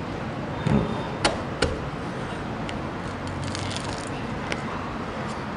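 Spiky husk of a Musang King durian being pried open with a large knife: a few sharp cracks and snaps as the blade levers the seams apart, the strongest about a second in, then a cluster of small crackles a little past the middle. The fruit is very fresh, so the husk is hard to pry open.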